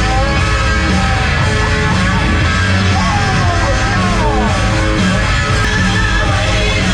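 Loud rock music with distorted guitar and a steady beat.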